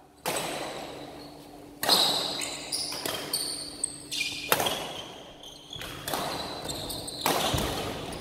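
A badminton rally: sharp racket strikes on the shuttlecock every second or two, each echoing in a large hall, with short high shoe squeaks on the court floor between the hits.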